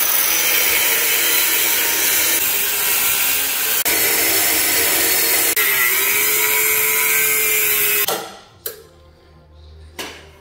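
Corded angle grinder cutting through a car's steel exhaust tailpipe, a loud steady grinding whine whose pitch sags slightly under load partway through. It stops abruptly about eight seconds in, followed by a couple of short knocks.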